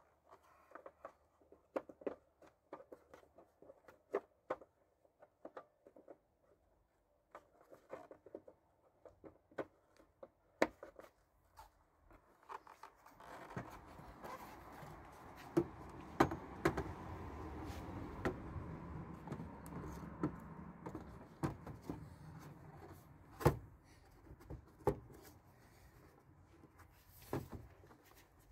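Scattered light clicks and knocks, like small hard parts being handled, with a steady rushing rumble joining about halfway through and fading near the end.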